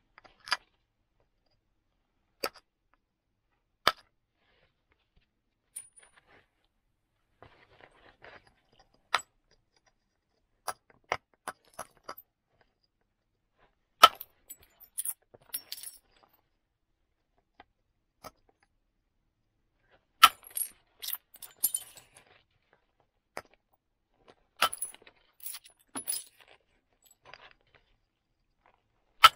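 Flint knapped by indirect percussion: a wooden billet striking a moose-antler punch set on a flint axe blank, giving sharp single knocks a few seconds apart at first. Later come quick runs of strikes with high clinking as flint flakes break off and chink against each other.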